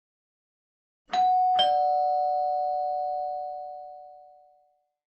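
Two-tone doorbell chime: a ding-dong, a higher note struck about a second in and a lower note half a second later, both ringing on and fading away over about three seconds.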